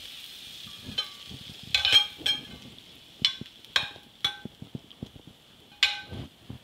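Metal tongs clinking against a hot skillet and a glass bowl as sautéed string beans are scraped out, about seven sharp clinks. Under them is the pan's faint sizzle, which dies away.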